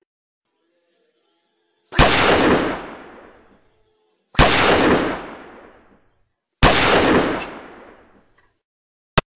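Three loud gunshot sound effects, each a sudden bang with a tail that fades over a second or two, about two and a half seconds apart. A short sharp click comes near the end.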